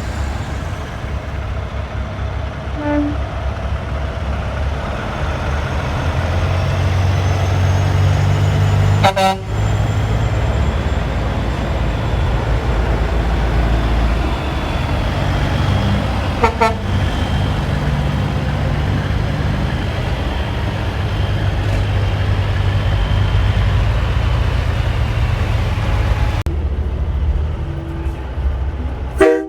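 Big truck's diesel engine running close by: a loud, steady low rumble that swells in the middle, broken by three sharp knocks, about 9 and 16 seconds in and just before the end.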